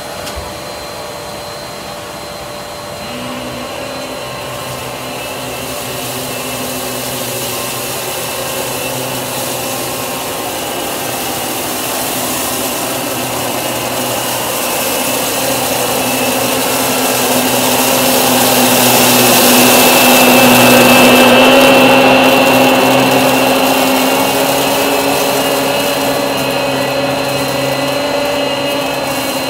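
Riccar Pizzazz canister vacuum running on max with its powered brush head moving over carpet: a steady motor whine, with a second, lower hum joining about three seconds in. It grows louder as the head comes closer, loudest about two-thirds of the way through, then eases slightly.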